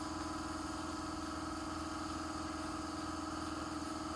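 Steady machine hum with several held tones, unchanging throughout.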